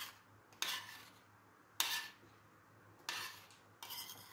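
Metal spoon scraping thick melted chocolate mixture off the sides of a stainless steel pot, in short separate scrapes about one a second.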